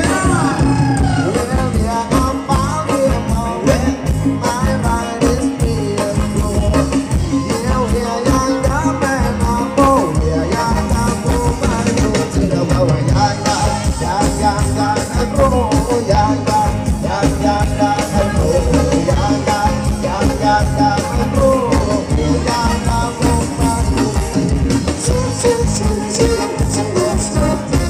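Live band playing Thai ramwong dance music, with a steady, driving beat under a melody line.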